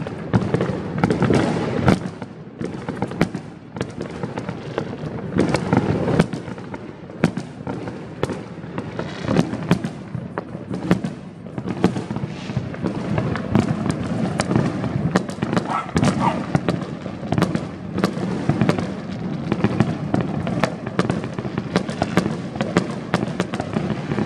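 Fireworks going off across a city, a continuous run of many overlapping sharp bangs.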